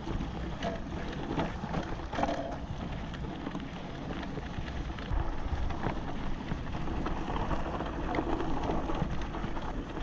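Mountain e-bike rolling down a bumpy grass slope: wind rushing over the microphone, the tyres swishing through the grass, and frequent short knocks and rattles from the bike jolting over bumps.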